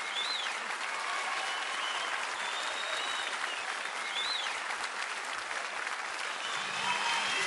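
Studio audience applauding steadily, with a few short high whistled notes rising and falling over the clapping.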